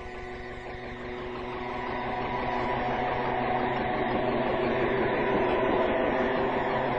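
A dense, steady rumbling noise with a few faint held tones, growing louder over the first three seconds and then holding.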